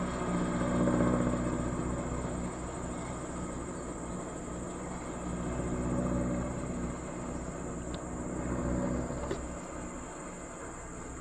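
Motor vehicle engine running nearby, a low hum that swells and fades several times and dies away about nine seconds in. Two faint clicks come near the end.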